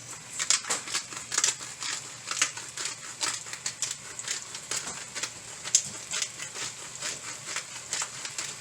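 Chicken and sliced vegetables being stirred in a large cooking pot: a steady run of irregular scraping and rustling clicks.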